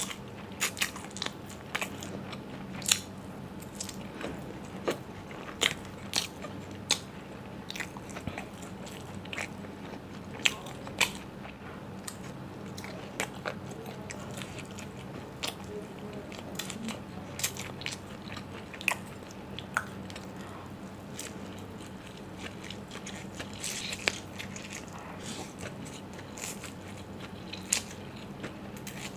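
Close-miked eating: chewing mouthfuls of fried momo and chowmein noodles, with irregular sharp crunches and mouth clicks, over a faint steady low hum.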